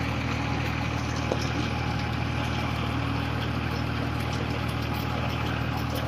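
Tractor engine running steadily at a constant speed, a low even drone.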